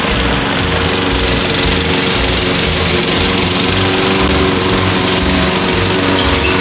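Lawn mower engine running steadily and loudly.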